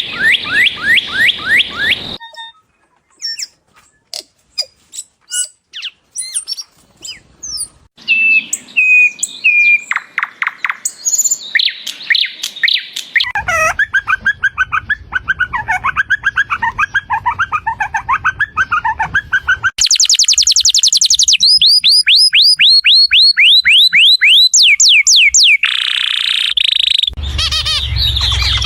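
Birds calling and singing in a run of short, different clips that cut abruptly from one to the next every few seconds. Several clips are rapid series of falling chirps.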